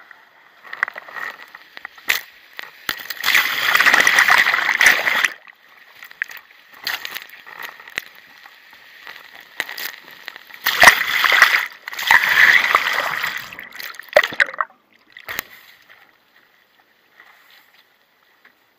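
Water splashing and sloshing against a windsurf board and its onboard action camera as spray and chop hit it, with two loud spells of splashing about three and eleven seconds in, dying away near the end.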